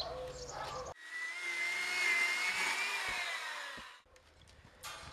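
Birds chirping for about the first second, then after a sudden cut an electric chainsaw runs for about three seconds, its whine rising slightly and then falling before it dies away.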